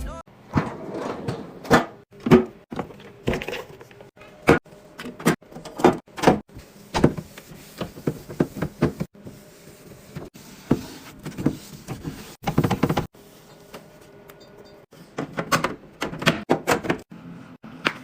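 Containers and food items being set down and slid into place in a refrigerator: a rapid, irregular series of clacks and knocks, pausing briefly about thirteen seconds in.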